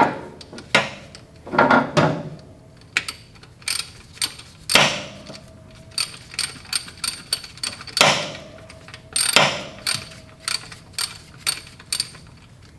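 Hand ratchet working engine bolts loose: bursts of ratchet clicking with irregular sharp metal clanks, several of which ring briefly.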